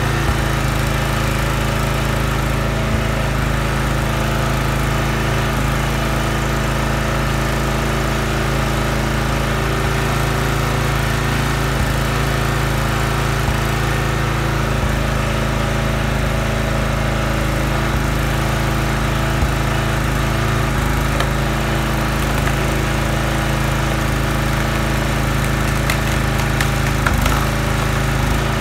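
Huskee gas log splitter's small engine running steadily at a constant speed, with a few brief knocks from the wood, the loudest near the end.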